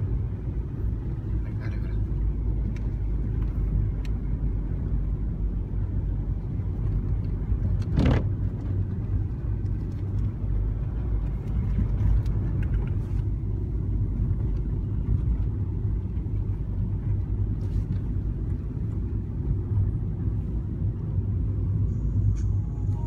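Steady low rumble of a car's engine and tyres heard from inside the cabin while driving, with one short sharp knock about a third of the way in.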